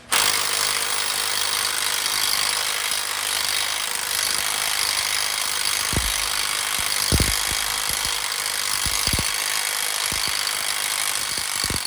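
Hand-held power tool running steadily at full speed on the Bronco's front end, with a few low knocks in the second half, then cutting off suddenly near the end.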